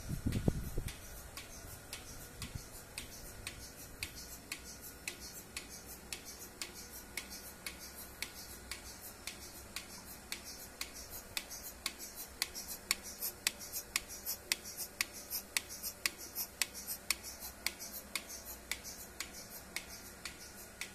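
Milking machine pulsator clicking with a short hiss about twice a second, over a low steady hum. A brief low rumble sounds in the first second.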